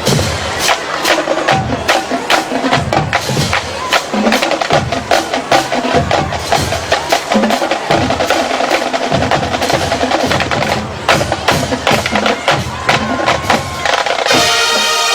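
Marching band percussion section playing a busy drum passage of rapid, sharp strokes with deep drum hits underneath. About a second before the end the full band comes in with a held chord.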